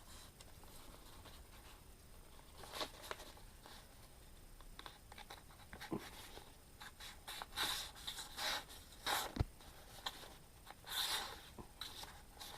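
Folding knife blade slicing through a sheet of paper in a sharpness test: a few short, papery rasps, a pair about three seconds in and a quicker run of them in the second half, with a couple of light clicks.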